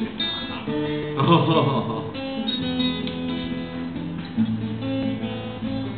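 Guitar being strummed, chords ringing and changing every second or two.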